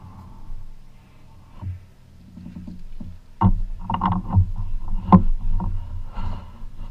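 A run of knocks and thumps on a flats skiff, over a low rumble, starting about halfway through while a fish is hooked on a fly rod.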